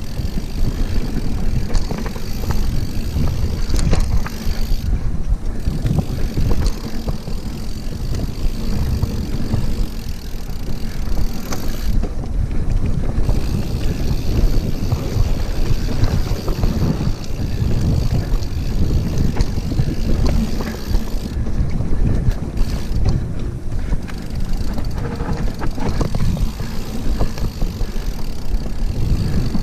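Enduro mountain bike descending a dirt forest trail at speed: steady wind noise on the camera microphone over the tyres rolling on dirt, with frequent knocks and rattles from the bike over bumps.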